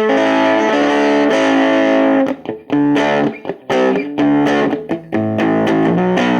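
Stratocaster electric guitar played through an old Melody Teisco amp with both guitar and amp volume all the way up: a chord rings out for about two seconds, then a run of short, choppy chords.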